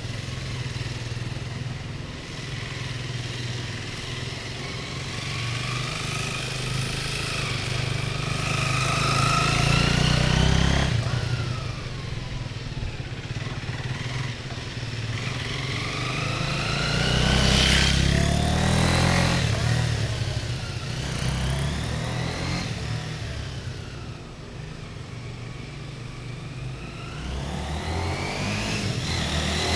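MZ RT-125 single-cylinder motorcycle engine riding laps. Its pitch climbs repeatedly as it accelerates, then drops back. It grows louder as the bike passes close, about ten and eighteen seconds in and again at the end, and fades as it rides away.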